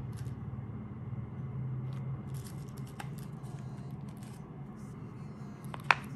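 Plastic candy wrappers crinkling and rustling as wrapped chocolates are handled and set on a wooden board, with one sharp click near the end as a piece is put down. A steady low hum sits underneath.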